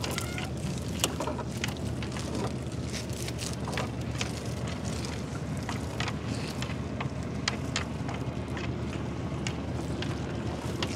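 Wet gill net being hauled by hand over the side into a boat: water drips and splashes, with many irregular sharp ticks and knocks as the net and its fittings come over the edge. A steady low hum runs underneath.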